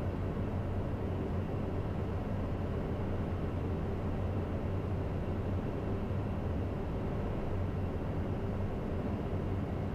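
Steady cockpit noise inside a Cessna Citation CJ3+ twin-engine business jet: an even rush of engine and airflow noise with a constant low hum, unchanging throughout.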